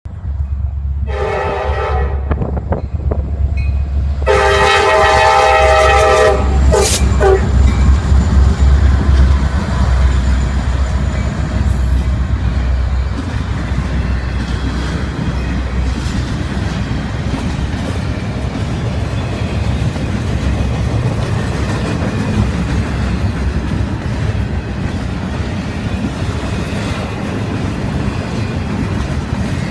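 Norfolk Southern diesel locomotive sounding its multi-chime air horn: a short blast about a second in, then a longer blast ending around seven seconds. The train then rolls past with a steady low engine rumble and the clickety-clack of the intermodal cars' wheels on the rail joints.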